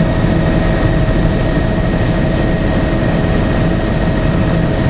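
Helicopter in flight, heard from inside the cabin: a loud, steady engine and rotor drone with a thin, steady high whine over it.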